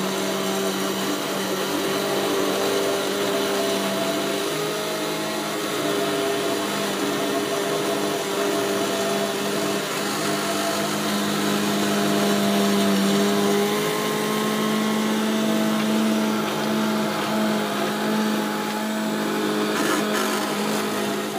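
Hand-held stick blender running steadily in a large pot of cooked courgettes and stock, puréeing them into soup. Its motor hum shifts slightly in pitch a couple of times.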